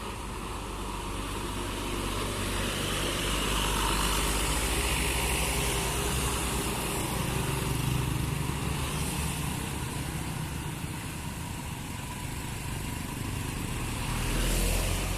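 Road traffic passing on a hill: engine and tyre noise that swells over the first few seconds, holds steady, and swells again near the end.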